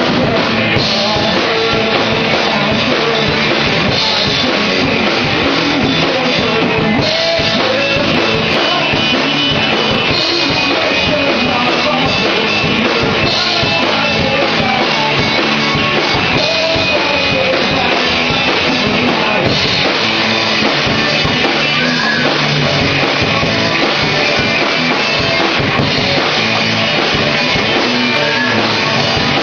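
Rock band playing a Britpop song live: drum kit and guitar, loud and steady, with no breaks.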